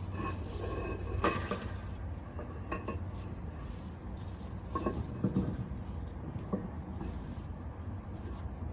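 Scattered hard clinks and knocks of concrete pavers being handled and set against one another, each with a short ring, over a steady low rumble.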